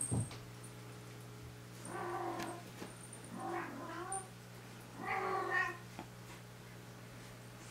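A cat meowing three times, about a second apart, each call half a second to a second long; the middle call wavers up and down in pitch.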